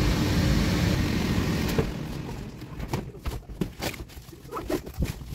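Electric bouncy castle blower running with a loud steady rush, which falls away about two seconds in as the castle is being packed away; after that come irregular knocks and clicks of handling.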